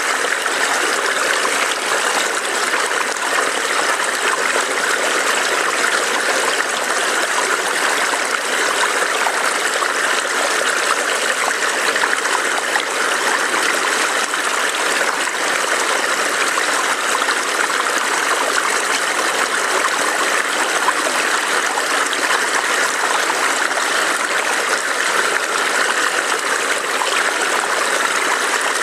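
Small forest stream burbling and trickling over rocks, a steady even rush of water.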